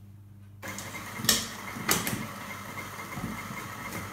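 KitchenAid stand mixer's motor starting about half a second in and then running with a steady whir as it works a thick soaked-bread cake mixture. Two sharp knocks come about half a second apart, early in the run.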